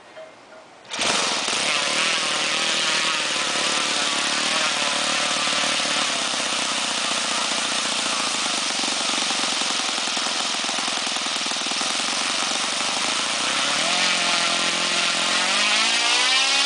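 Saito FG-20 single-cylinder four-stroke gasoline model-aircraft engine swinging a 16x6 propeller: it catches abruptly about a second in and runs steadily at low revs, then revs up smoothly near the end.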